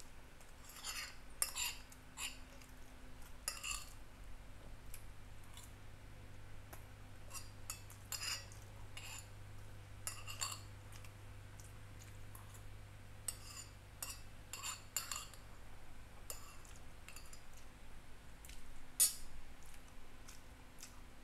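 Metal spoon scraping and clinking against a glass bowl while scooping up rice: short, irregular clicks and scrapes, with one sharper clink near the end.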